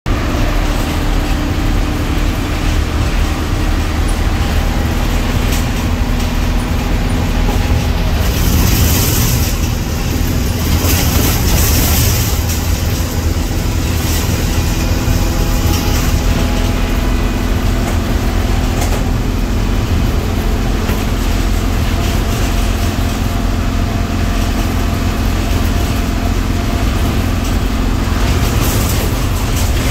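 Engine and road noise heard inside the cab of a GMC step-van delivery truck under way: a steady, loud low drone from the engine and tyres. A hissing rush comes in from about eight to twelve seconds in.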